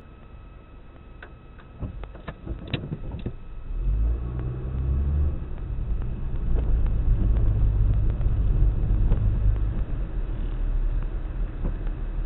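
Car driving, a low rumble from the engine and tyres: quiet at first with a few scattered clicks, then growing loud about four seconds in and staying loud.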